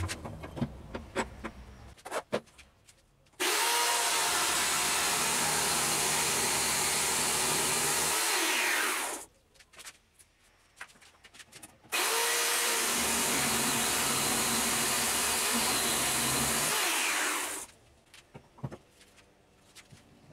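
Electric chainsaw run twice for about five seconds each, cutting the corners off a log section clamped in a vise, its motor winding down with a falling pitch at the end of each cut. A few knocks come before the first cut as the log is handled.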